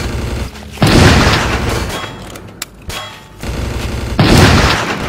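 Two loud, sudden blasts from dubbed action-film gunfire and explosion sound effects, about three and a half seconds apart, each dying away over about a second.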